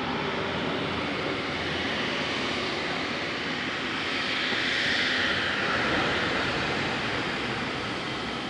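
Beechcraft King Air 350i's twin PT6A turboprop engines running at high power, a steady drone that swells about halfway through with a falling whine.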